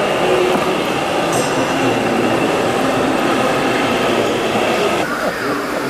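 Radio-controlled model construction machines running: a steady mechanical whine and hum of small motors and gearing that shifts about five seconds in.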